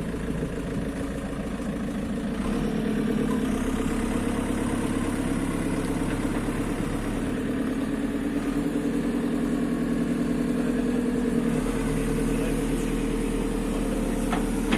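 JCB 3CX backhoe loader's diesel engine running steadily at low revs, picking up slightly and getting a little louder a couple of seconds in.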